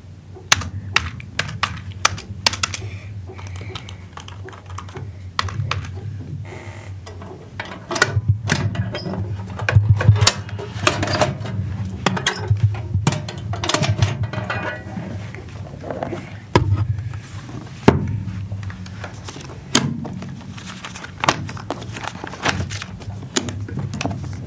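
Office sounds: a run of irregular clicks, taps and sharp knocks from office objects being handled, over a steady low hum.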